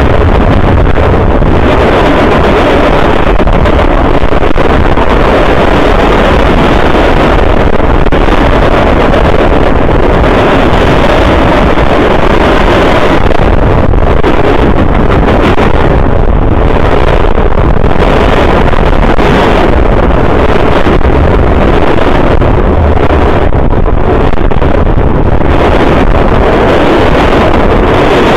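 Freight train cars rolling past a ground-level microphone just inches from the train: a loud, unbroken rumble with heavy wind buffeting from the train's slipstream.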